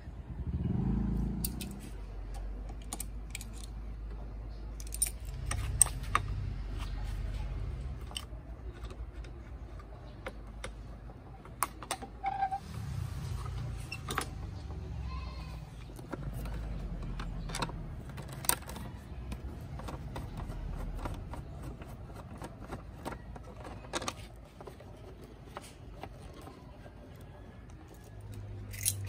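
Scattered clicks, taps and light rattles of metal and plastic as a Honda Wave's handlebar mirror is unscrewed and its handlebar cover and wiring are taken apart by hand. A low rumble comes and goes underneath.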